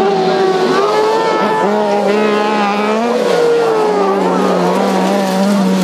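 Crosskart engines revving hard as the karts power-slide through a loose dirt corner, the pitch rising and falling with throttle and gear changes.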